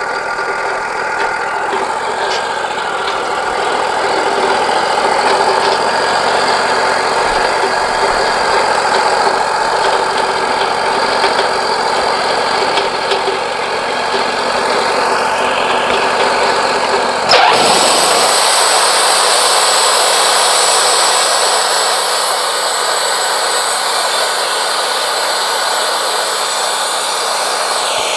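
Wood-Mizer LT40 Wide sawmill running steadily, its engine and band saw working through a pine cant. About two-thirds of the way through, the sound changes abruptly: the low hum drops away and a brighter, higher hiss takes over.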